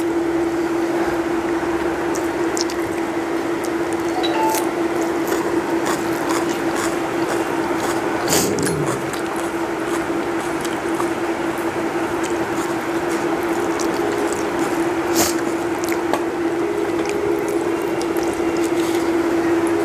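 Close-up hand-eating sounds: fingers squishing and mixing rice with curry on a steel plate, and chewing, picked up by a lapel microphone. Underneath runs a steady hum, and there are a couple of sharp clicks, about 8 and 15 seconds in.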